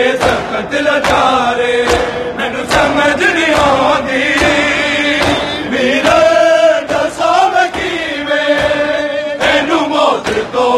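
A large crowd of men chanting a Punjabi noha (lament) in unison, with hand-on-chest slaps of matam struck together at a steady beat.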